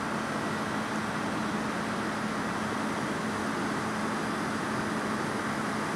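Fire apparatus engines running steadily on the fireground: a constant mechanical drone with a low hum.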